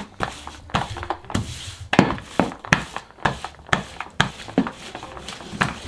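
Rolling pin rolled back and forth over cocoa dough sealed in a thin plastic freezer bag on a wooden table: a run of irregular knocks and plastic crinkling, a few each second.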